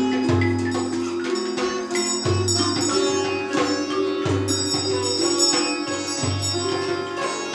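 Improvised ethnic-fusion music: a sitar playing over hand-drum strikes from a djembe, with a deep bass note sounding about every two seconds.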